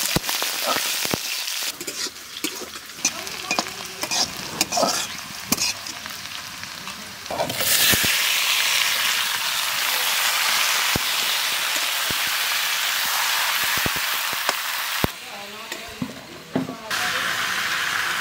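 Onions and whole spices frying in mustard oil in a metal wok, with a metal spatula scraping and knocking as they are stirred. About seven and a half seconds in, the sizzle turns suddenly louder and steady as marinated chicken pieces fry and are stirred, dropping away briefly near the end.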